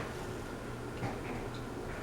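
Westinghouse Apollo Elite ceiling fan running on high speed: a steady low hum with a light tick about once a second.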